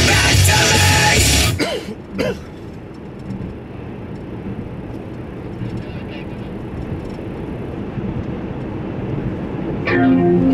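Rock music cuts off about a second and a half in, leaving a low, steady road-and-engine rumble inside a moving 2007 Toyota RAV4's cabin for about eight seconds. Electric guitar music starts again near the end.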